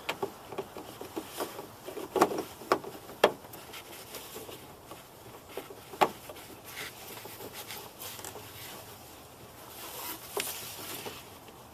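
Plastic clicks, knocks and rubbing as an LED turn-signal bulb is pushed into its socket and fitted back into the front light housing. There is a cluster of sharper clicks about two to three seconds in and a single louder click around six seconds.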